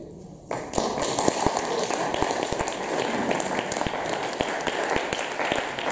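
Audience applauding, the clapping breaking out suddenly about half a second in and then holding at an even level.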